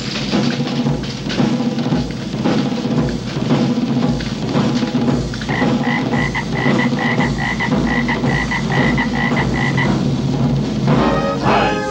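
Toads croaking over steady drumming. From about six to ten seconds in, a high chirping pulse repeats about three times a second.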